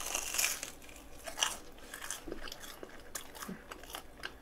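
Biting into a crispy deep-fried Korean croquette (goroke): a crunch of the fried bread crust in the first half-second, then close-up chewing with small scattered crunches.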